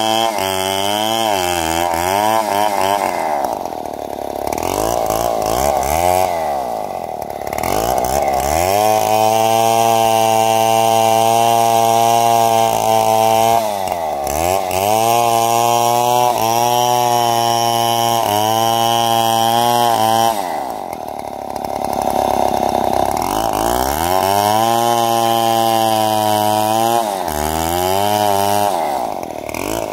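Stihl MS 070 two-stroke chainsaw running at high revs while felling a large tree. Its engine pitch sags and climbs back about five times during the cut.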